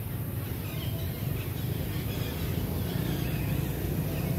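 Faint, short, high chirping animal calls over a steady low rumble.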